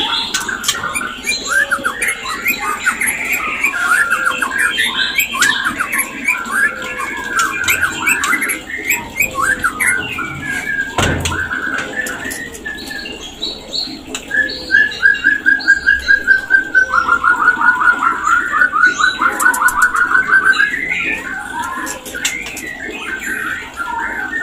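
White-rumped shama singing its mating-season song: varied quick whistled phrases, then a fast run of rapidly repeated notes in the second half. A single sharp knock comes about halfway through.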